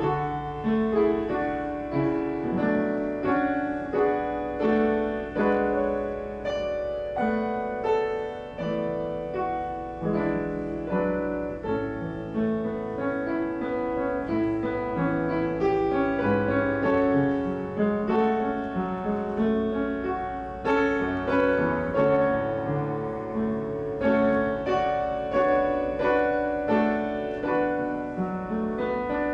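Piano playing a slow instrumental piece, chords and melody notes struck and left to ring, with no singing.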